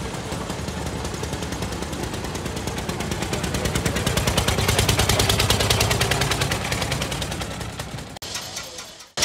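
Veteran car engine from the early 1900s running with a rapid, regular popping exhaust beat. It grows louder as the car comes close about four seconds in, then fades and cuts off abruptly just before the end.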